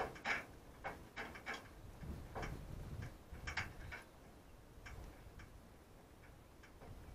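Domestic rabbits, a doe and her kits, munching and rustling dry hay: irregular crisp crunching clicks, sparser towards the end.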